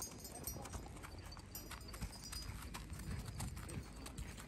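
Horses walking on sandy, packed dirt: an irregular series of hoof clops from more than one horse.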